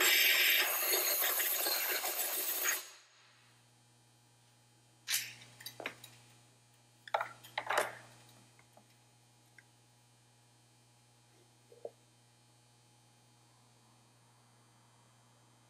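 Compressed-air blow gun hissing as it blows out a freshly reamed valve guide in an aluminium cylinder head, cutting off suddenly about three seconds in. Then a few metallic clinks and knocks, with one more light tick near the end.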